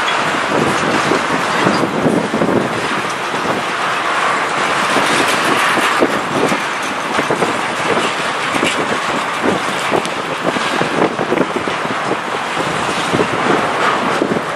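Freight train of eight-axle tank cars rolling past close by, a steady rumble of wheels on rail with frequent clanks and knocks, and wind buffeting the microphone.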